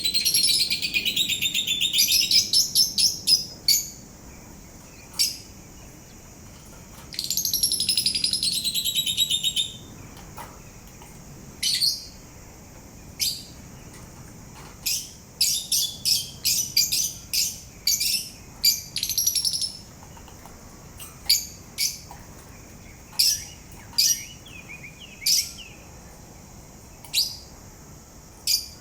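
A pet parrot singing: two runs of rapid warbling trills, one at the start and another about seven seconds in, then a long string of short, sharp chirps at irregular spacing.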